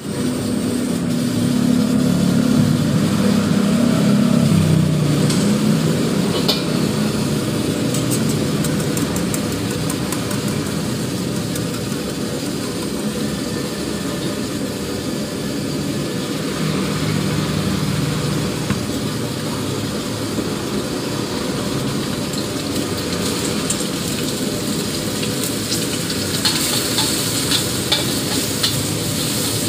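Wok cooking over a steady, rushing gas burner as the wok and its oil heat. About 26 s in, beaten egg hits the hot oil and sizzles, and a metal wok spatula scrapes and stirs it in quick strokes.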